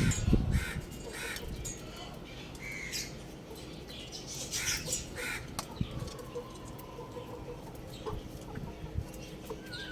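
Young chickens chirping and clucking in short scattered calls, with a brief burst of wing flapping at the start.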